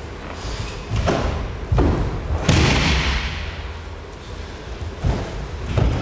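Heavy thuds of judoka stepping, stamping and falling on judo mats during a kata, about five impacts with the hall ringing on after each. The loudest comes about two and a half seconds in.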